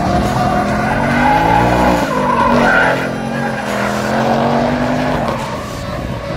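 Ford Mustang drifting in tire smoke: the engine revs rise and fall twice as the car slides, while the rear tires squeal against the pavement throughout.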